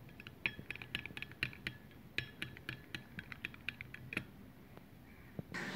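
A metal spoon beating thick strained yogurt in a glass bowl, its bowl clicking lightly and irregularly against the glass several times a second.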